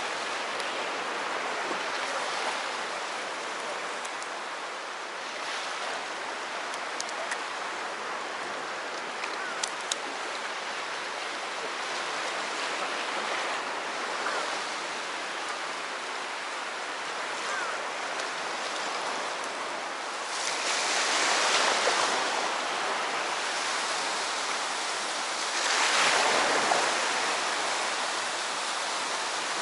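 Sea waves washing onto the shore in a steady wash, with two bigger waves breaking and swelling louder about two-thirds of the way through and again near the end. A few faint clicks.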